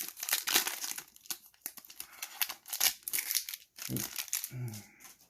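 Foil wrapper of a Pokémon TCG Darkness Ablaze booster pack being torn open and crinkled by hand, with a rapid run of sharp crackles that thins out after about three seconds.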